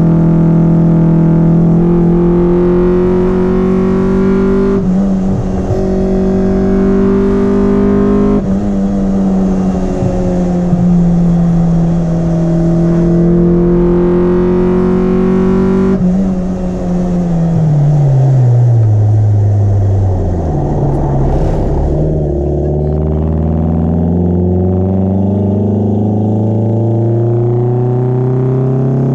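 Mitsubishi Lancer 4G15 four-cylinder engine pulling under load, its induction noise from an open pod air filter picked up in the engine bay. Revs hold fairly steady, fall away sharply about sixteen seconds in, then climb again from about twenty-one seconds.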